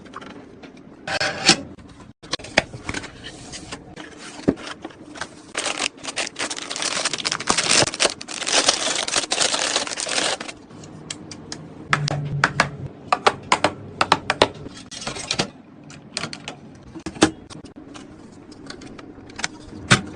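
Hands handling computer parts: irregular sharp clicks and taps, with a longer stretch of scraping and rustling in the middle.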